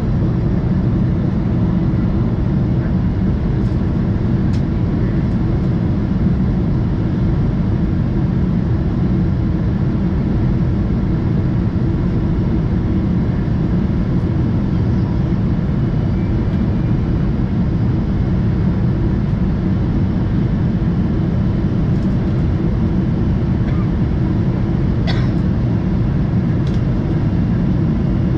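Steady cabin roar of a Boeing 777-200ER in flight, heard from a window seat over the wing: its Rolls-Royce Trent engines and the rush of air along the fuselage, mostly a low rumble, during the descent. A few faint clicks come through near the start and near the end.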